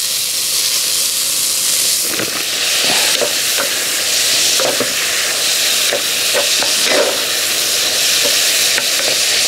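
Ground beef sizzling as it browns in a hot cast-iron Dutch oven, with a wooden spatula scraping and stirring through it from about two seconds in.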